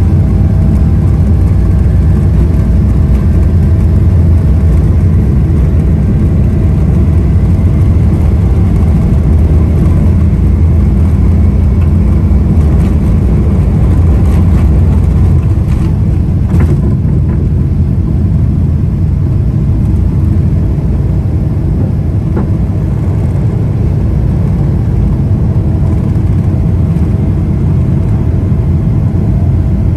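Boeing 777-300ER's GE90 engines at takeoff thrust heard from inside the cabin over the wing: a loud, steady, low rumble through the takeoff roll and lift-off. A few brief rattles come around the middle, and it gets slightly quieter in the second half.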